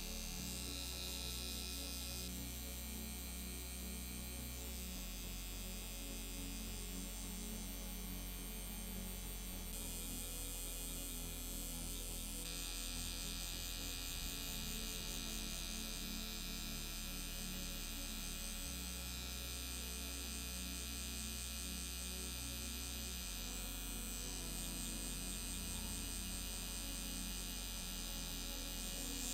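Permanent-makeup tattoo pen running steadily against the lip, a low electric hum whose pitch and strength shift a few times.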